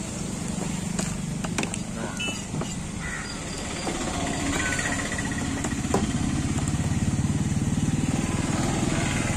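An engine running with a low, evenly pulsing rumble that grows louder from about halfway through. A few sharp cracks sound over it as crab shell and legs are snapped apart by hand.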